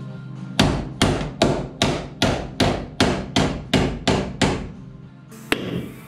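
A hammer striking the car's steel body sill, about eleven even blows at a little over two a second, each with a short metallic ring, as damaged bodywork is knocked straight. A single sharper knock follows about a second after the series stops.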